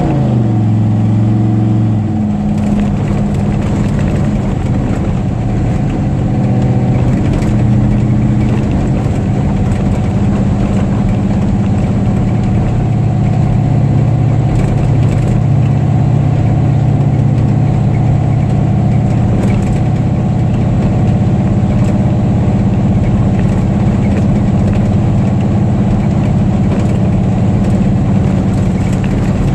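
Car engine coming down from revs in the first second or so, then idling steadily.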